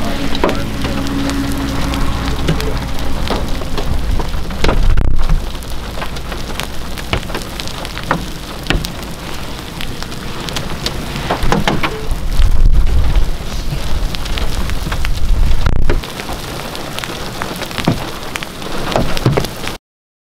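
Baseball-sized hail falling in rain, with stones striking in sharp, irregular knocks over a steady hiss. Several loud low rumbles come and go, and the sound cuts off just before the end.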